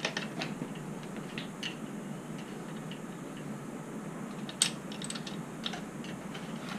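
Scattered small metallic clicks and rattles as the folding hinge latch of an Argento Piuma folding e-bike's frame is worked by hand, with one sharp click about four and a half seconds in.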